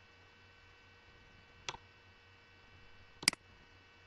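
Two faint short clicks, the second louder, about a second and a half apart, over a low steady hum: computer mouse clicks while a line is drawn on the slide.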